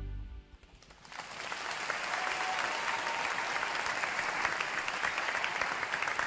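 The band's last held chord fades out, and about a second later the audience breaks into applause that builds quickly and then holds steady.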